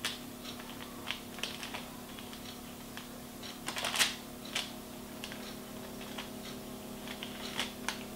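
Metal offset spatula spreading chocolate génoise batter on a parchment-lined baking tray: scattered light clicks and scrapes, the loudest about four seconds in. A faint steady hum runs underneath.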